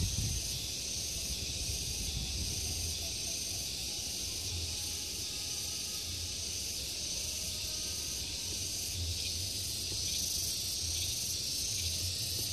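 Steady high-pitched chirring of insects, a constant hiss-like drone, over a faint low rumble.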